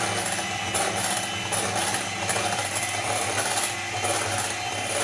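Electric mixer running steadily, beating whipped cream with strawberry filling, its beaters clicking against the bowl now and then.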